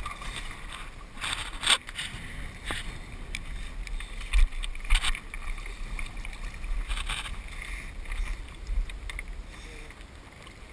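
Wind buffeting an action camera's microphone, with scattered clacks and scrapes of feet moving over loose rocks.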